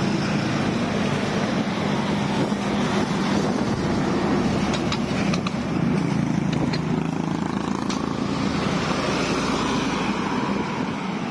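Road traffic running close alongside: engines and tyres of a large truck and motor tricycles passing on the bridge, a steady dense rumble. A few short clicks sound about five to eight seconds in.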